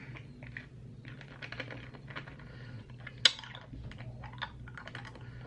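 Seven Warheads sour hard candies being worked around in a full mouth: small irregular clicks of the hard candies against the teeth, with one sharper click about three seconds in. The candies are still too hard to bite through.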